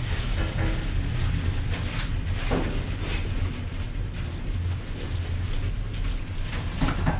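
Steady low background rumble, with a few faint clicks of chopsticks against dishes about two to three seconds in.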